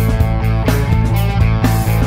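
Background music: a rock-style score with sustained held notes and a steady beat.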